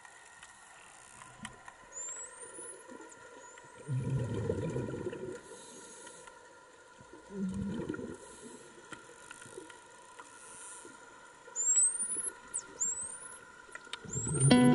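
Dolphins heard underwater: several short, high-pitched rising whistles, a pair about two seconds in and three more near the end, with scattered clicks. Two low rushing bursts of a scuba diver's exhaled bubbles, the first about four seconds in and lasting over a second, are the loudest sounds.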